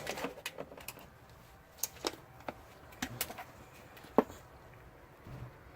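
Scattered light clicks and rustling as the steel cable is pulled through the plastic cable housing of a Honda Odyssey sliding door motor, with one sharper click about four seconds in.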